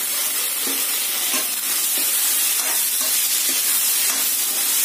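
Green peas and chopped tomato sizzling steadily in hot oil in a metal kadai, with a few light knocks of a ladle against the pan as they are stirred.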